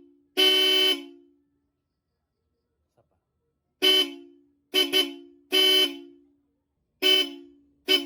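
Original Bosch Europa electric horn sounding in a series of honks at close range: a half-second blast, a pause of about three seconds, then a quick toot, a quick double toot, another half-second blast and two more short toots. Each honk is two steady tones sounding together.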